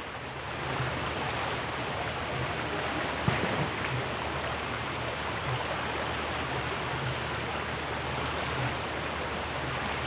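Steady rushing of a shallow river flowing over stones, with a single brief knock about a third of the way in.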